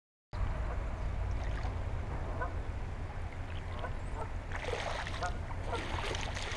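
Creek-side outdoor ambience: a steady low wind rumble on the microphone, with scattered short animal calls. About four and a half seconds in, a louder rustling noise joins.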